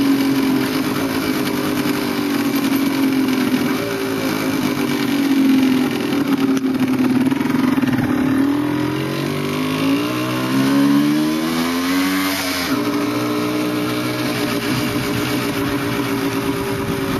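Motorcycle engine running while riding, heard from on the bike. About nine seconds in the revs climb steadily, then the pitch drops suddenly near thirteen seconds and settles back to a steady run.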